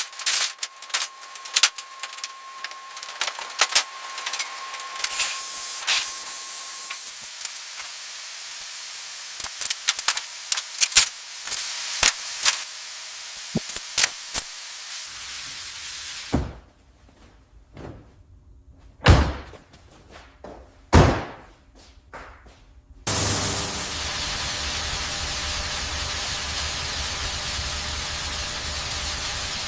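A run of workshop-style sound effects: many sharp clicks and knocks, then a few heavy thuds like doors or panels shutting, and from about two-thirds of the way through a steady hiss.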